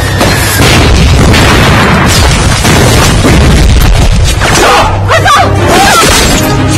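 Film sound-effect explosions: a string of loud booming blasts amid dense rumbling noise. Shouting voices come in near the end.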